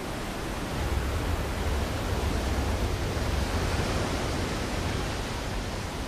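Heavy rushing water, a steady dense noise with a strong low rumble underneath.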